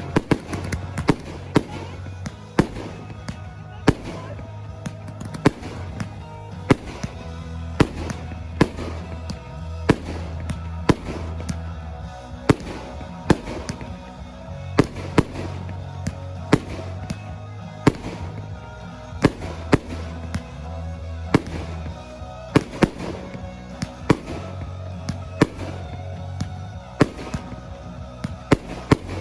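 Fireworks display, aerial shells bursting in sharp bangs about one every second or two, with a song's instrumental section and its steady low notes playing underneath.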